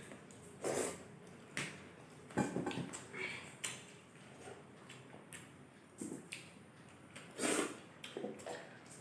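Eating noises: irregular short chewing, slurping and breathing sounds from people eating a spicy meal, with the odd light knock of dishes.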